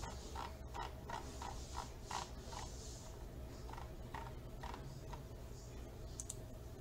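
Faint ticking of a computer mouse scroll wheel as a document is scrolled, about three ticks a second in two runs with a short pause about three seconds in, over a steady low hum.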